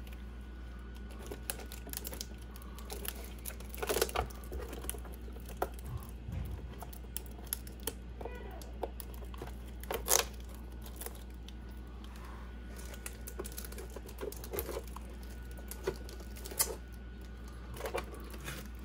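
Clear plastic wrapping crinkling and crackling as it is handled and pulled around an RC car body, with irregular sharp crackles, the loudest about 4 and 10 seconds in, over a steady low hum.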